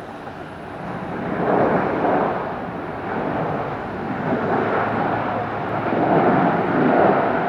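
Jet airliner engines running with a loud rushing roar that swells and ebbs, rising about one and a half seconds in and peaking again near the end.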